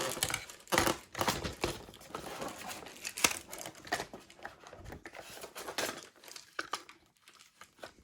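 Packaging crinkling and rustling with scattered clicks and knocks as the parts of an airsoft sniper rifle kit are handled, fading to near quiet about six seconds in.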